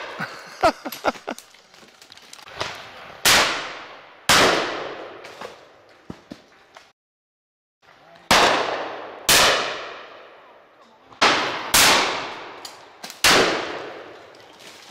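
Shotguns firing at driven pheasants: about eight sharp shots, mostly in quick doubles about a second apart, each trailing off over a second or two.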